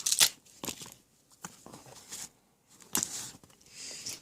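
Hand tools being handled and pulled out of a tool bag: rustling of the bag with scattered light knocks and clicks.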